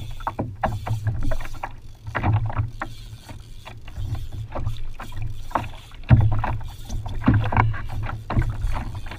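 Plastic sit-on-top kayak rocking on open sea: irregular slaps and knocks of water against the hull, over a steady low rumble.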